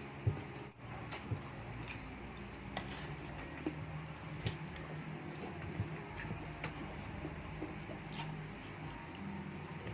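Eating sounds of chicken feet adobo being chewed and sucked: scattered, irregular soft clicks and smacks.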